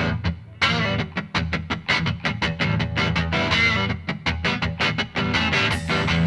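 Rock music with strummed electric guitar, in a fast, even rhythm.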